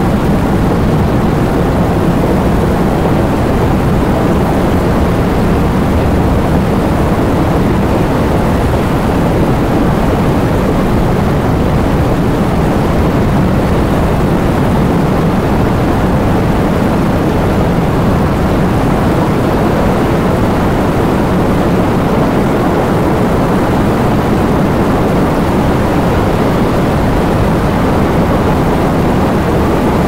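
Heavy rain falling steadily: an even, unbroken rush, deeper than it is hissy, with no single drops or rumbles standing out.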